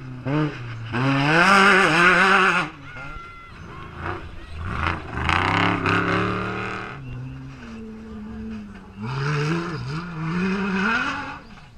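Off-road race vehicles, a side-by-side UTV and then race trucks, passing one after another at full throttle. There are three loud passes, the engine pitch rising and falling as each one goes by.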